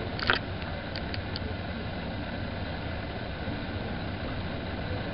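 Steady room noise with a low rumble, broken about a third of a second in by one short, louder rustle and then a few faint clicks.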